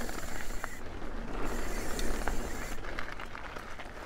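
Custom steel Dawley Rallye hardtail mountain bike rolling downhill on a dirt trail covered in dry leaves: steady tyre noise and low rumble, with the bike rattling and the rear hub ratcheting as it coasts, and scattered sharp clicks.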